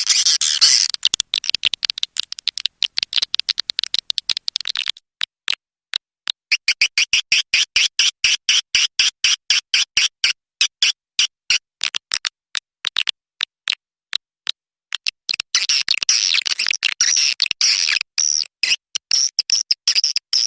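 Swiftlet calls, the kind of call sound played to draw swiftlets into a nesting house: a high-pitched twittering made of rapid chirps and clicks. It is dense for the first few seconds and again over the last five, with a steady run of separate chirps, several a second, in between.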